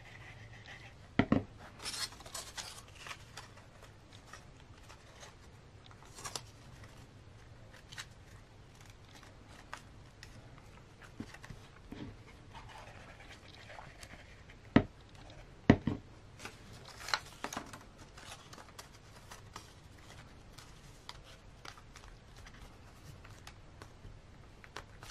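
Paper rustling and crinkling as folded paper star pieces are handled, glued and pressed together, with a few sharp knocks, one about a second in and two close together midway, such as a plastic glue bottle set down on the cutting mat.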